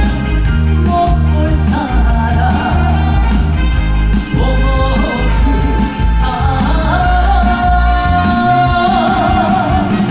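Live trot song: a male singer over a loud backing track with a heavy bass beat, a long note with vibrato held in the second half.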